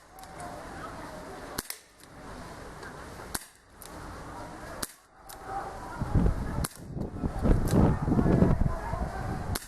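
A CO2 BB revolver firing several sharp pops, one every second and a half to two seconds. A louder low, uneven rumble runs through the last few seconds.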